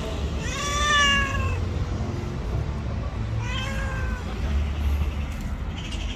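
Cat meowing twice: a long, drawn-out meow that rises then falls in pitch about half a second in, and a shorter meow about three and a half seconds in. A steady low rumble runs underneath.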